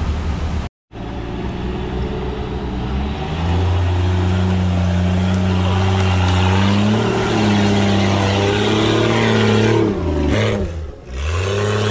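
Off-road 4x4 engine revving hard under load as the vehicle climbs out of a muddy creek. It holds high revs, then drops and picks up again near the end. A brief dropout in the sound falls just under a second in.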